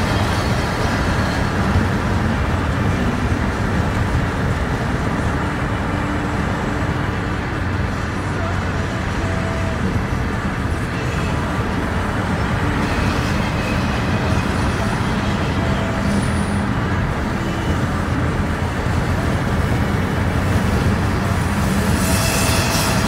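Steady road noise and engine hum of a car driving, an even rumble with no breaks.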